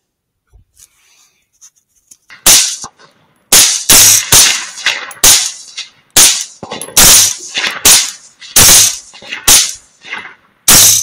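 Rapid gunfire: about a dozen loud shots in quick succession, beginning about two seconds in, irregularly spaced with some less than half a second apart.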